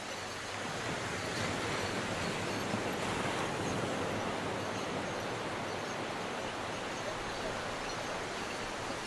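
Sea surf washing up a sandy beach: a steady hiss of small breaking waves that swells a little between about one and four seconds in.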